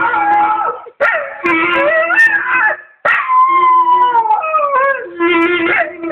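Staffordshire bull terrier howling along to a clarinet, its howl sliding up and down in pitch over the clarinet's held notes, in three long phrases with short breaks between them.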